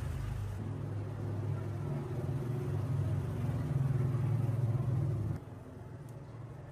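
A motor running with a steady low hum, cutting off abruptly about five seconds in, followed by a few faint clicks.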